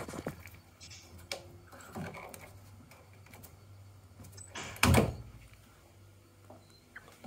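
Light scattered knocks and clicks of hand work on the gas valve fittings and pipework inside a combi boiler, with one louder thump about five seconds in.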